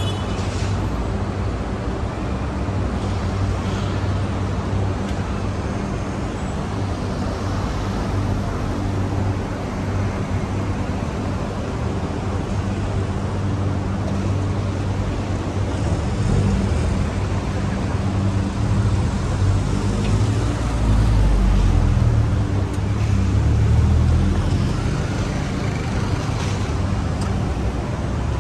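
Road traffic on a city street: cars and other motor vehicles running by in a steady drone, with a deeper rumble that swells for a few seconds about twenty seconds in as a vehicle passes close.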